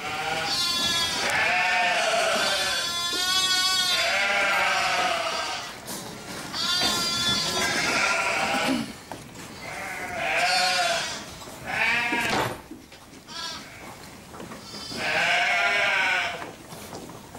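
Sheep bleating: about six long, quavering calls with short gaps between them.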